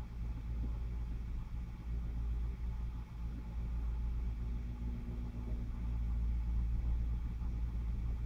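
Steady low background hum with a faint rumble, unchanging throughout, with no distinct knocks or clicks.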